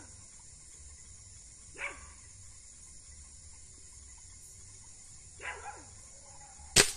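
A dog barks twice, a few seconds apart, then a single sharp gunshot rings out near the end.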